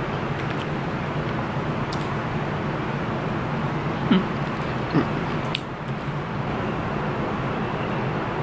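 Steady background hum and hiss of outdoor ambience, with two brief clicks of eating sounds about four and five seconds in.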